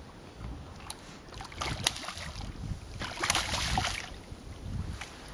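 A hooked barramundi splashing and thrashing at the surface beside the boat as it is grabbed by hand. The splashing comes in irregular bursts, loudest about three to four seconds in.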